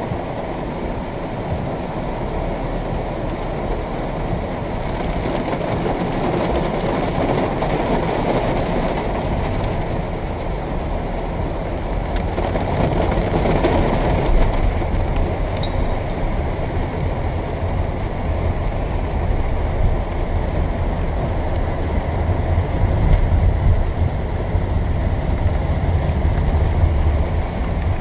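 Steady rumble of road traffic and vehicle noise, with a deep low hum that grows stronger in the second half.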